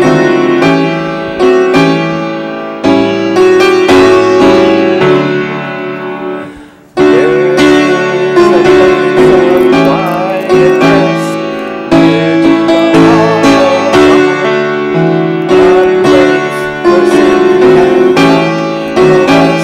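Grand piano playing a slow piece in held chords, with a short break about seven seconds in before it starts again.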